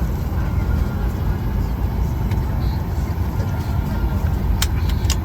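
Steady low engine and road rumble of a vehicle in motion, with a few sharp clicks near the end.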